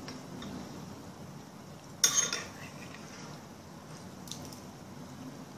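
A metal spoon clinks sharply against a ceramic rice bowl about two seconds in, with a short ring after it. A fainter tap follows about two seconds later.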